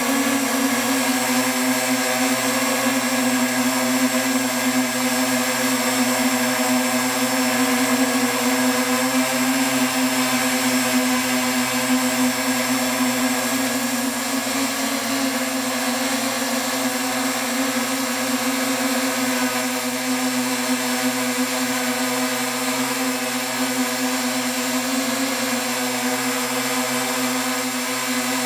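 Octocopter's eight electric motors and propellers running steadily, a dense hum of several steady tones, heard close up from the camera on the craft.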